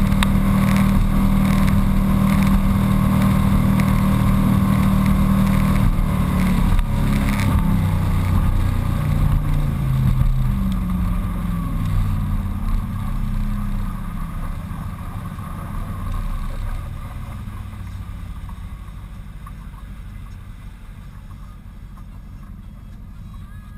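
Formula 242 sport boat under way: steady engine drone with rushing wind and water. About seven seconds in, the engine pitch steps down, and the whole sound grows steadily fainter toward the end.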